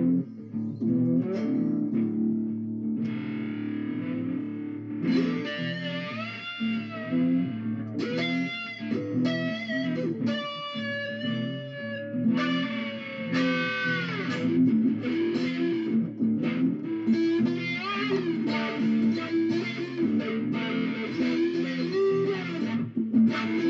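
Electric guitar music, with several notes that bend up and down in pitch.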